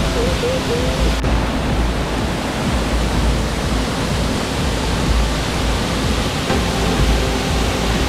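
Waterfall cascading over rock into a pool: a loud, steady rush of falling water.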